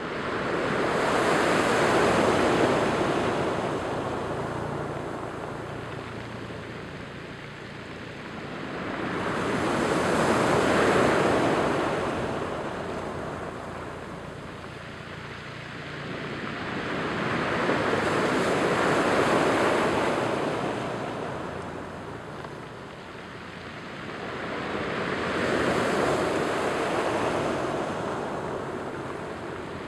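Surf breaking on a rocky cobble beach, four waves about eight seconds apart, each rising to a rush and then fading back.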